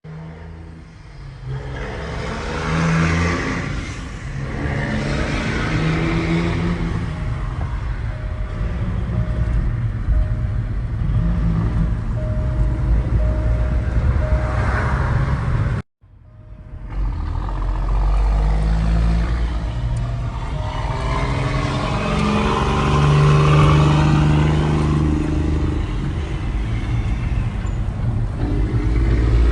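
Cummins ISX diesel engine of a semi truck running under load, its pitch climbing and dropping in steps as it pulls through the gears. It breaks off abruptly about halfway through, then picks up again.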